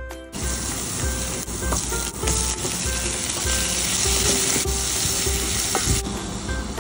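Garlic and chopped onion, carrot and green pepper sizzling in hot oil in a stainless steel pan while they are stirred with a spatula. The steady sizzle starts about a third of a second in.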